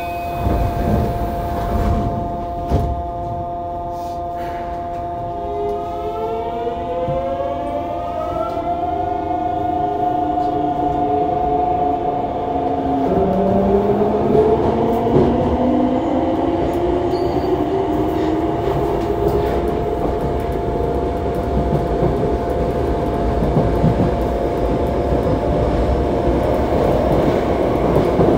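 Mitsubishi GTO-VVVF traction inverter of a Yokohama Municipal Subway 3000A train, heard from inside the car as it pulls away. After a few knocks in the first seconds, the inverter's whine rises from about five seconds in as several tones climbing in steps that jump and shift as the train accelerates. The tones fade into wheel-on-rail running noise that grows louder.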